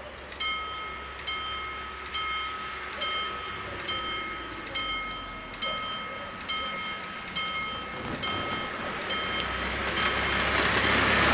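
A level crossing's warning bell strikes a little over once a second, each ring rising clearly above the background, signalling that the crossing has activated for an approaching train. Near the end, the noise of a car passing close grows louder.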